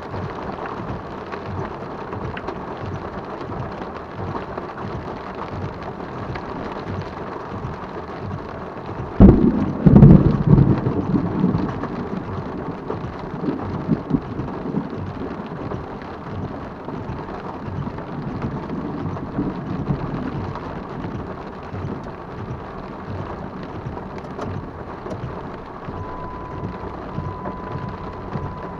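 Steady heavy rain, then about nine seconds in a close lightning strike: a sharp crack and an instant deafening boom of thunder that rumbles away over several seconds. A steady high tone comes in near the end.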